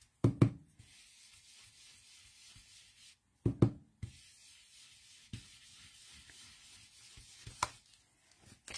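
A round blending brush dabbed on an ink pad and rubbed over cardstock: a faint rubbing with a few soft taps, two about a third of a second in and two more about three and a half seconds in, and a single sharp click near the end.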